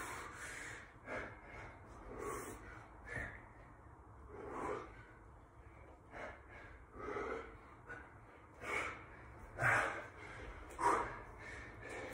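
A man breathing hard, with heavy breaths about once a second, out of breath from a high-intensity bodyweight workout.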